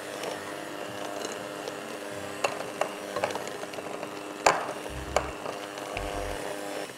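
Anex electric hand mixer running steadily while creaming butter and sugar in a glass bowl, its beaters clicking now and then against the glass, loudest about four and a half seconds in. The motor stops at the very end.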